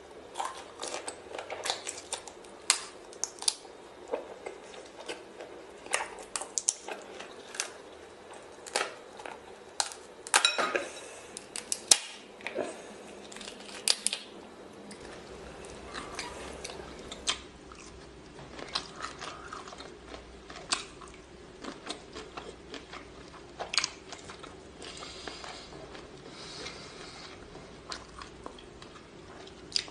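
Eating sounds of seafood: chewing and biting shrimp and pulling apart shellfish in a wet sauce, with many sharp, wet clicks and crunches. About halfway the recording changes, with a low hum under softer chewing and mouth sounds.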